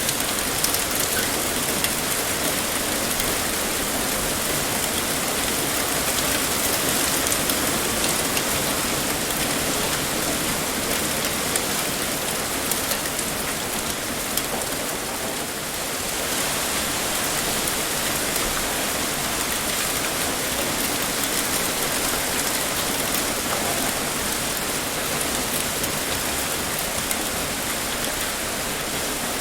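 Heavy rain pouring steadily, a dense even hiss with scattered drops ticking.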